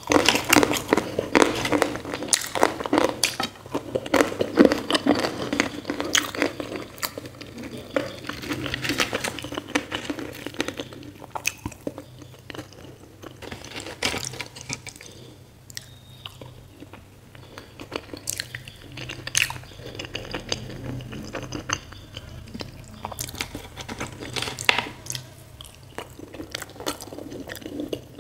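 Close-miked eating: wet chewing and mouth sounds with crunchy bites of finger millet dhido and spicy potato curry, over a dense run of small clicks and smacks. It is busiest in the first ten seconds, thins out in the middle, and picks up again near the end.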